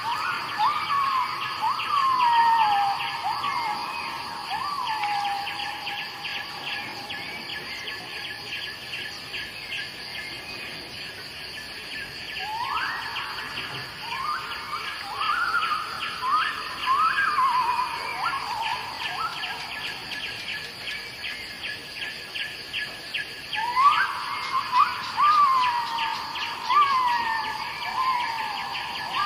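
A songbird sings a whistled phrase three times, each a rising note followed by a run of falling slurred notes. Steady, evenly pulsed insect chirping runs beneath it.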